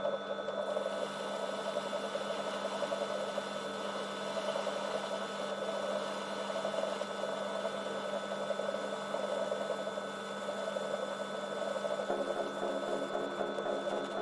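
Metal lathe running steadily, its motor and gear drive giving a constant whine made of several steady tones. About twelve seconds in, a few extra lower tones join the drone.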